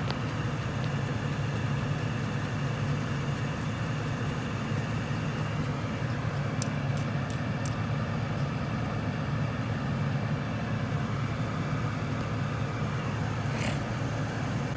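Car engine idling steadily with the heater fan running on full, a low even hum. A few light clicks midway and a brief rustle near the end.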